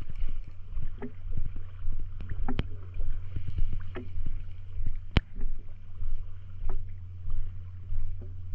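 Water lapping against a small boat's hull as a low rumble that swells and falls about once a second, with a few sharp clicks and knocks, the loudest about five seconds in.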